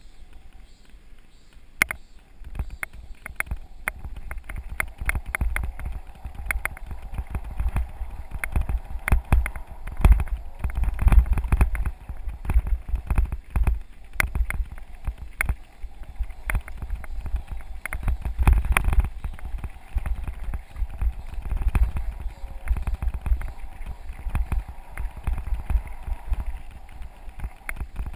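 Mountain bike rolling over a rough gravel forest road, heard from an action camera on the bike or rider: a steady run of irregular knocks and rattles as the tyres and frame jolt over the stones, with wind rumble on the microphone. It is quieter for the first couple of seconds, then the clatter picks up.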